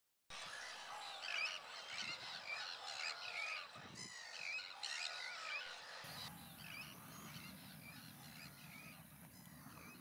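Many birds calling over one another, a dense mix of short chirping calls. About six seconds in the calls become fainter and a low steady rumble comes in.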